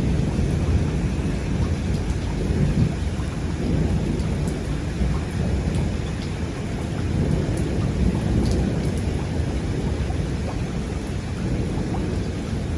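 Heavy rain pouring steadily, with a deep continuous rumble underneath and scattered sharp drop hits.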